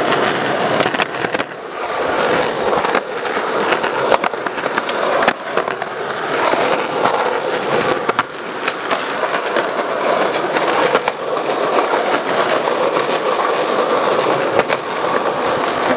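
Skateboard wheels rolling over concrete, a steady gritty rumble, with about half a dozen sharp clacks of the board striking the ground scattered through.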